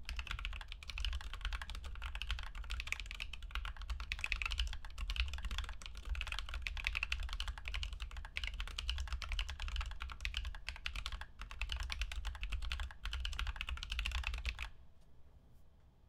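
Fast, steady typing at about 110 words a minute on a weighted split mechanical keyboard with tactile knockoff Holy Panda switches and 3D-printed PLA keycaps: a dense stream of key clacks that stops abruptly about a second before the end.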